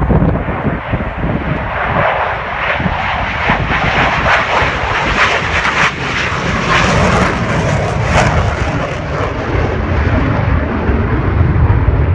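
Aircraft engine noise of a plane flying past, a loud roar that builds to its peak in the middle and eases off toward the end.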